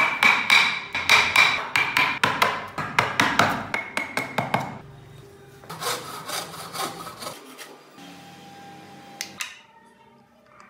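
Hand chisel cutting into a small piece of wood in quick repeated strokes, about four a second, for nearly five seconds. After a short pause comes a briefer, fainter run of strokes, then a single click.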